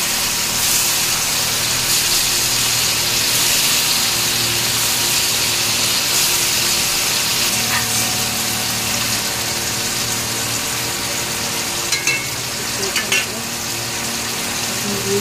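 Diamond-cut dhoka, Bengali lentil cakes, deep-frying in hot oil in a kadai: a steady sizzle and bubbling. A couple of small clicks come near the end.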